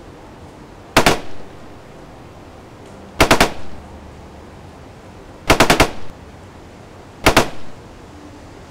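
Automatic gunfire in four short bursts about two seconds apart, each of a few rapid shots with a brief echo after it.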